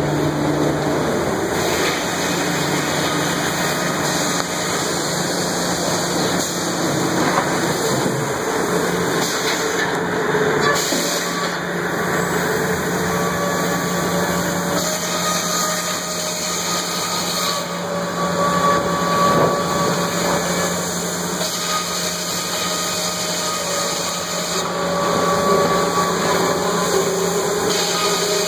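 Sawmill machinery running: a loud, continuous mechanical din from the saws, motors and timber-handling rollers, with a steady low hum throughout and whines that come and go above it.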